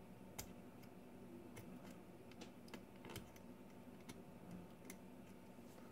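Faint, irregular clicks of a hobby knife tip poking and picking the flash out of a small resin pulley part, about eight light ticks scattered over several seconds.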